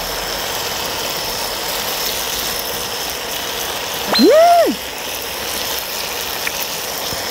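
Pork belly and bone-in pork chops sizzling steadily on a large cast-iron cauldron-lid grill, with a few faint crackles. About four seconds in, a person gives a short closed-mouth 'mmm' hum that rises and falls while chewing.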